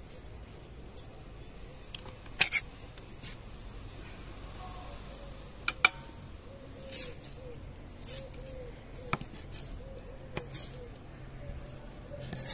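Kitchen knife clicking and tapping against a wooden cutting board and an enamel plate while tomatoes are diced and scraped onto the plate: a few sharp, spread-out clicks, some in quick pairs.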